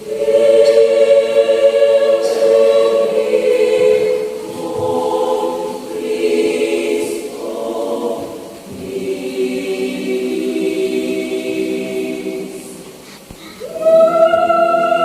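Adult mixed choir singing a church choral piece in held chords, phrase by phrase with brief dips between. Near the end a new, louder phrase begins with a high sustained note on top.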